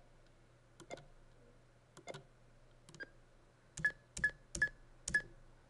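Computer mouse button clicking as points are placed one by one: three single clicks about a second apart, then four louder clicks in quicker succession, about two or three a second, near the end.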